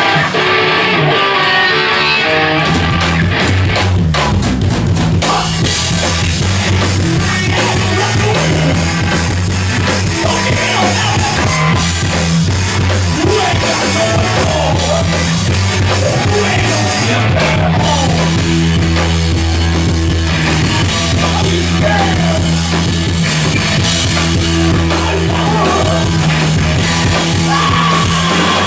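A post-hardcore rock band playing live, with distorted guitars, bass and a drum kit. After a thinner opening, the full band with its low end comes in about two and a half seconds in.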